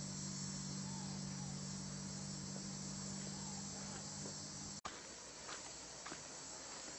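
Steady high-pitched insect chorus in the background. A low steady hum runs under it and stops abruptly about five seconds in, followed by scattered faint clicks.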